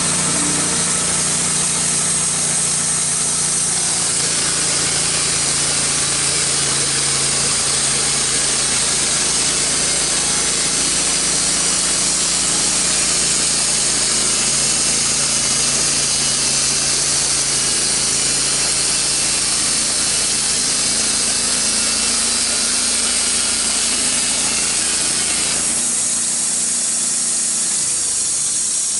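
Wood-Mizer LT15 band sawmill sawing a board off a red oak cant: the sawmill's motor runs steadily under load while the band blade cuts through the oak, with a slight change in the sound about four seconds in and again near the end.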